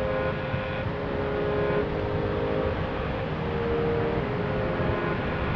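Background music: a noisy, whooshing ambient build with held chords that change every second or so, and no beat.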